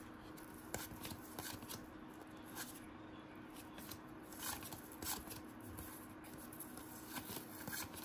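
Basketball trading cards being handled and flipped through, with faint, scattered soft slides and flicks of card stock.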